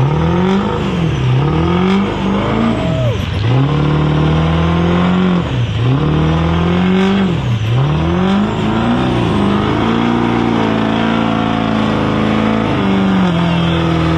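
Full-size pickup truck doing a burnout: its engine revs up and down repeatedly, then is held at high revs for a few seconds before dropping back, over the rush of the spinning rear tires.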